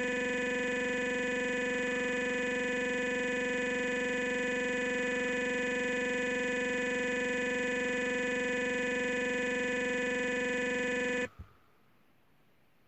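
A steady electronic buzz tone with many even overtones from the car mirror monitor's speaker, holding at one level and then cutting off abruptly with a click near the end, leaving only faint background noise.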